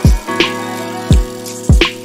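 Background music: an electronic beat with deep kick drums that drop in pitch, about two a second, a snare or clap hit now and then, and held synth chords.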